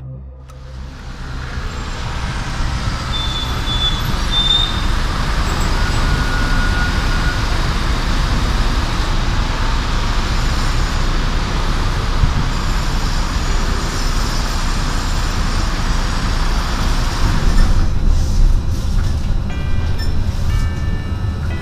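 Steady noise of road traffic on a wide city avenue as an Alstom Citadis 302 tram approaches the stop. About eighteen seconds in, the sound switches to inside the moving tram, with steady whining tones over the running rumble.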